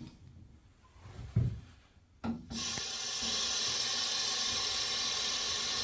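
Water tap turned on and running in a steady gush from about halfway in, after a knock and a click. The tap is opened to draw hot water from the combi boiler.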